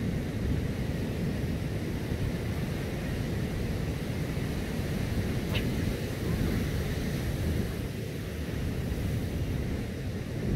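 Steady rumble of wind buffeting the microphone over the wash of surf, with a faint click about five and a half seconds in.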